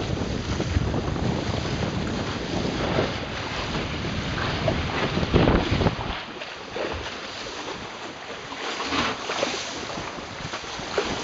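Sea water rushing and splashing along the hull of a sailing outrigger proa under way, with wind rumbling on the microphone. The wind rumble eases about halfway through.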